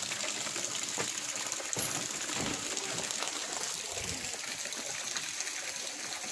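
Swimming pool fountain jets splashing steadily into the pool, a continuous hiss of falling water.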